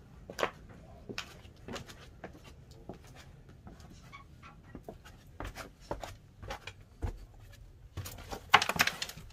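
Footsteps crunching over plaster debris and old floorboards at a slow walking pace, with a louder burst of crunching and scraping near the end.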